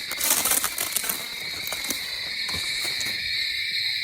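Steady chorus of night insects such as crickets, a continuous high trill in two pitches. Scattered rustling and a few sharp clicks sit over it, mostly in the first second.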